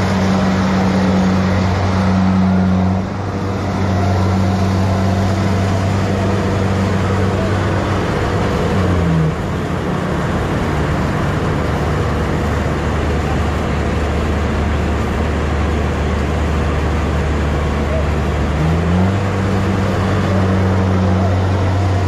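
Engine of a rice harvesting machine running steadily in the field, a low drone. Its speed drops about nine seconds in and comes back up near nineteen seconds.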